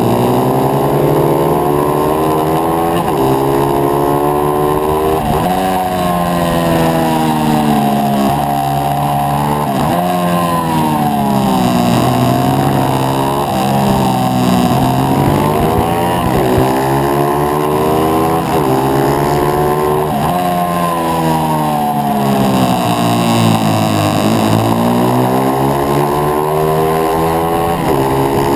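A supermoto pitbike's small single-cylinder four-stroke engine, ridden hard, heard close from an onboard action camera. The revs climb and fall back every few seconds through the shifts and braking.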